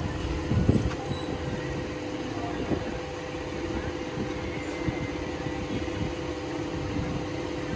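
Workshop machinery running with a steady hum, with a few knocks about two seconds apart.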